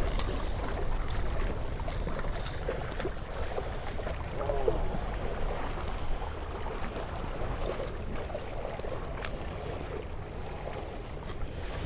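Steady low rumble of wind buffeting the microphone, with a few sharp clicks in the first couple of seconds and another about nine seconds in.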